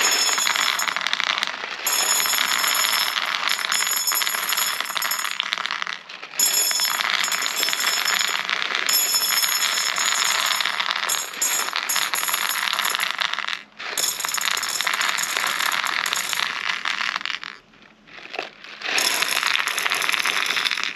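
Plastic 6 mm airsoft BBs poured over a BB sizing gauge, a dense clattering rattle as they roll across and drop through its graded holes. The rattle breaks off briefly a couple of times and lulls near the end before picking up again.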